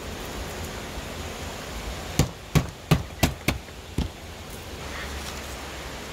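Six sharp knocks in quick succession, starting about two seconds in and ending about two seconds later, over a steady background hiss.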